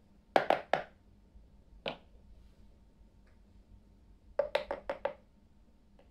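Hard plastic toy teacups set down onto plastic saucers: three quick clacks near the start, a single one about two seconds in, then a rapid run of about six clacks about four and a half seconds in.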